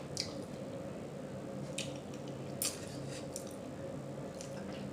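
Wet mouth smacking while chewing food, a handful of short, sharp clicks spread through a few seconds, the loudest a little past halfway.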